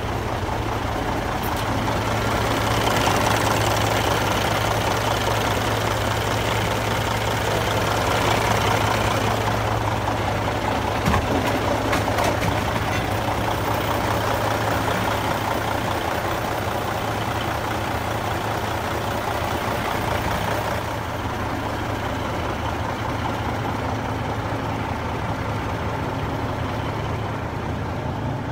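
2000 International 9900i semi truck's diesel engine idling steadily with a constant low hum, with one short click about eleven seconds in.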